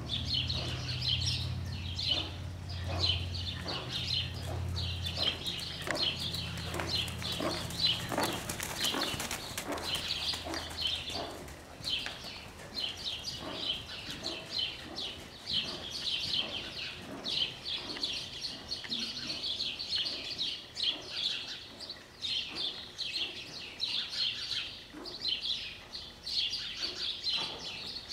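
Birds chirping rapidly and without pause, with a horse's hoofbeats on the arena's sand footing at a trot under them.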